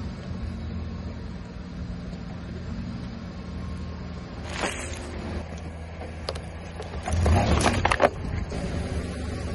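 Car engine running at a steady low hum. About 7 s in it rises as the tyre rolls onto a plastic drink bottle, crushing it with a burst of crackling and crunching. A brief crackle comes about halfway through.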